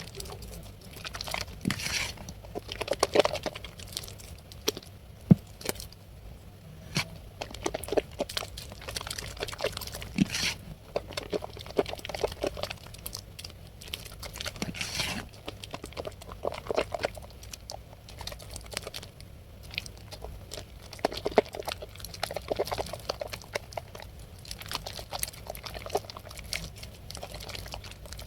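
Blue Medicare soap being lathered with water, giving an irregular run of wet squelching and small crackling clicks.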